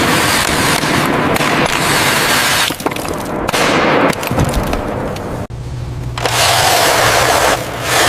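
Loud rushing hiss that stops and restarts abruptly several times, with a low steady hum under the last stretch.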